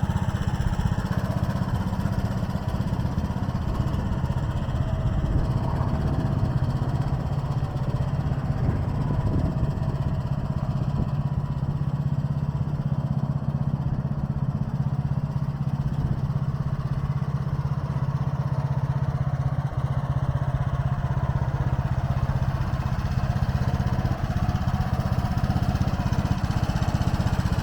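AGROTK mini excavator's small engine running at a steady idle, an even hum with no revving.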